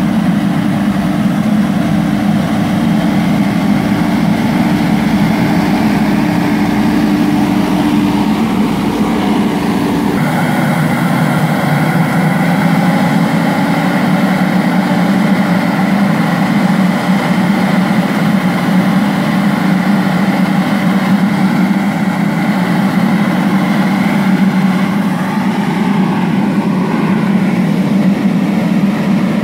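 Tractor engine running steadily with the fan of a tractor-mounted airblast orchard sprayer blowing spray mist. The tone shifts suddenly about ten seconds in, then holds steady again.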